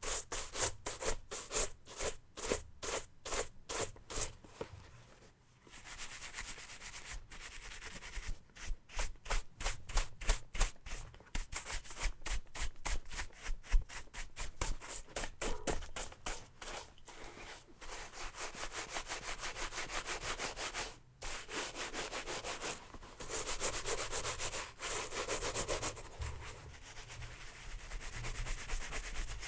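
A stiff brush scrubbed back and forth over a hard surface in quick, even strokes, several a second, in runs broken by a few short pauses.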